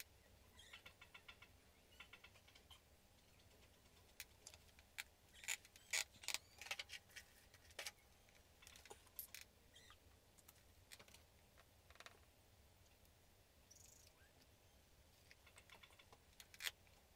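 Faint, scattered clicks and taps of a welder's circuit board and tools being handled on a workbench, with a few short runs of rapid ticking near the start, over a low steady hum.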